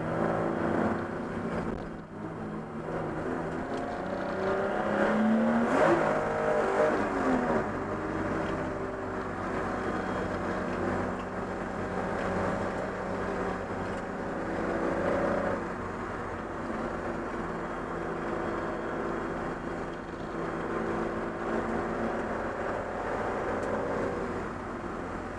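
Race car engine running hard, heard from inside the stripped cockpit, its pitch rising and falling as it revs through the corners and gears, with a sharp climb and drop about six seconds in.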